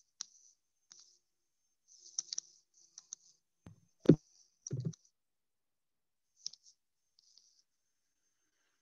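Scattered light clicks and taps, with a louder dull knock about four seconds in and a second one just after: handling and tapping on the touchscreen device that is recording.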